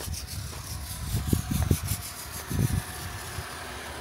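Wind buffeting the microphone in irregular low gusts.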